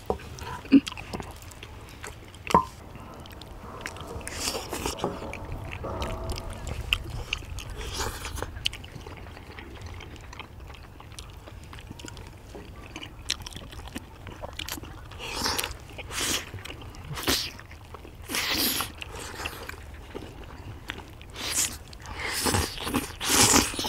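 People eating jjajang tteokbokki: chewing mouthfuls of rice cakes in black-bean sauce, with a couple of sharp clacks near the start. In the second half come a run of short slurps, the loudest near the end.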